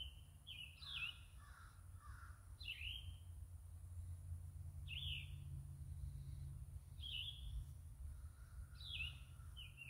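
Wild birds calling: short down-slurred chirps every second or two, over a steady low rumble.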